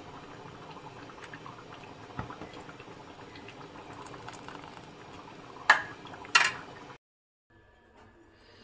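Thick rice kheer bubbling and plopping in a metal pan as a ladle stirs and pours it, with two sharp knocks less than a second apart near the end. The sound then cuts off to faint room tone.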